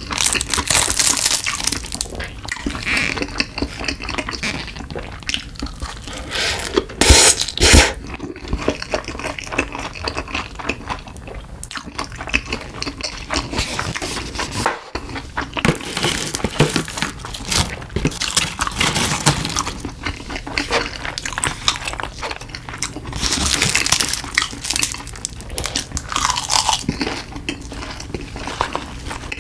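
Close-miked eating sounds: wet chewing and slurping of cup noodles, with sharper, louder bursts about a quarter of the way in and again near the end.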